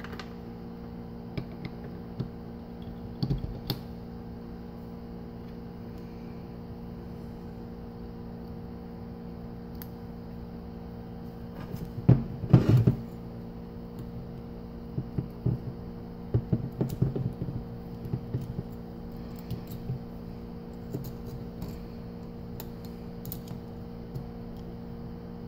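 Small metal transmission parts clicking and clinking by hand as a blocker piston, spring and pin are fitted into a cast parking brake bracket. A steady hum runs underneath; the loudest clatter comes about twelve seconds in, with a run of lighter clicks a few seconds later.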